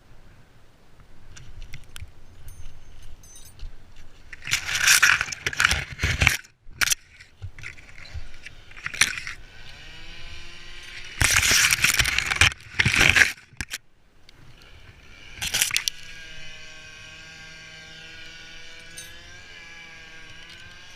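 Branches and brush crackling and breaking in two loud bursts, with a few sharp cracks, then a steady motor hum.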